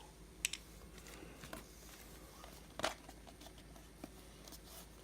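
A few faint, scattered clicks and taps of small parts and tools being handled during chainsaw assembly, the strongest near the middle.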